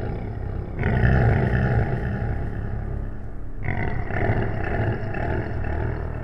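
Monster growl sound effect: a deep, rough, long growl that swells up about a second in and again just past halfway.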